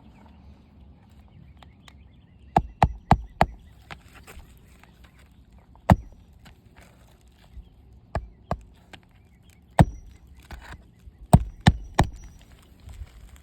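Hammer blows on roofing nails fastening a 3-tab asphalt shingle: a quick run of four sharp strikes about two and a half seconds in, then single and paired strikes spread through the rest.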